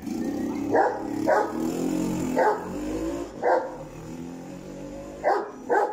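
A bully kutta (Pakistani mastiff) barking: six single barks at uneven gaps, the last two close together near the end. A low steady hum runs under the first three seconds.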